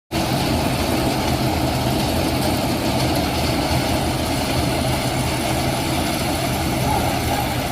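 Mini combine harvester's engine running steadily: a constant low hum with unbroken mechanical noise over it.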